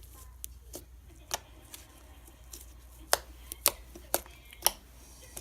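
Fluffy slime being poked and pressed, giving a series of sharp, separate pops and clicks, the loudest ones coming about three to five seconds in.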